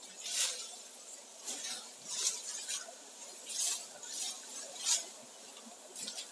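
Leaves and dry palm fronds rustling in short scratchy bursts, about seven times, as the bundle of fronds is moved through the brush.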